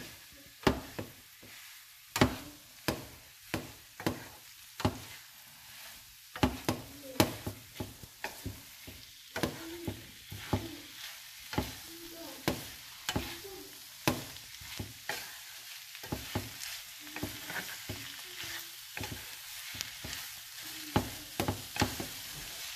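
Wooden spatula scraping and knocking against a nonstick frying pan as clam meat is stirred, with irregular sharp taps about one or two a second. A steady sizzle of the clams frying runs underneath and grows a little louder in the second half.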